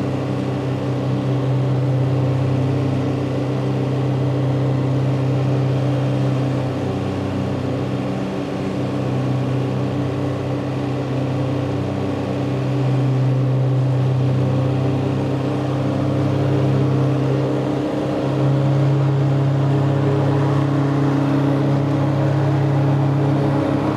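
Tractor engine and a 12-foot Woods Turf Batwing rotary mower running steadily while cutting tall, damp grass: an even mechanical drone that shifts slightly in pitch now and then.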